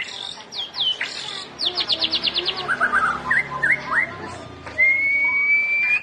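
White-rumped shama singing a varied song of clear whistles, with a fast run of about ten short notes early on, several quick upslurred notes, and one long, slightly rising whistle near the end.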